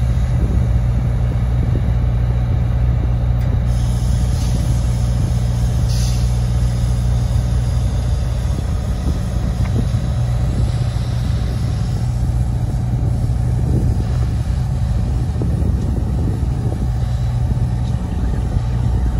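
Diesel freight locomotive engine running with a steady low rumble. A steady hiss joins about four seconds in, with a single click a couple of seconds later.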